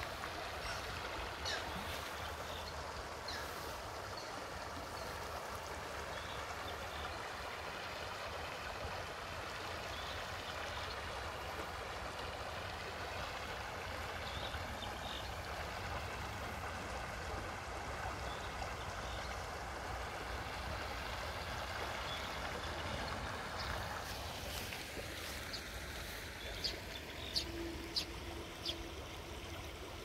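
Shallow stream running over a stony bed: a steady rush of water. It thins and changes character about three-quarters of the way through, and a few sharp clicks come through near the end.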